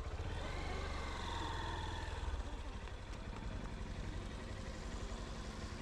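Honda XR190's single-cylinder four-stroke engine running at low revs with a steady pulsing beat, and a faint wavering higher tone over it in the first two seconds.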